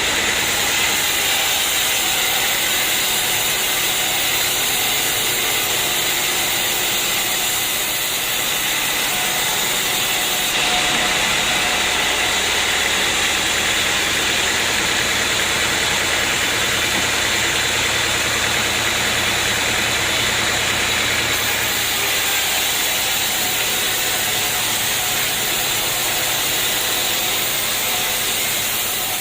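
Portable sawmill running steadily. About a third of the way in the sound grows fuller, with more hiss up high and a stronger low hum, for some ten seconds, then settles back.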